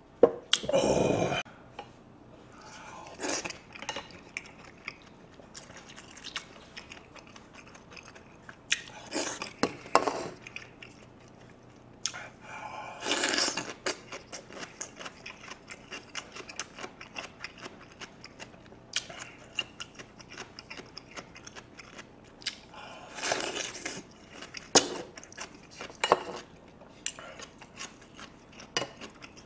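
Close-miked eating sounds: chewing and crunching of radish kimchi and rice, with a spoon tapping and scraping against a glass bowl in many short clicks. Several louder bursts of mouth noise stand out, the loudest just after the start.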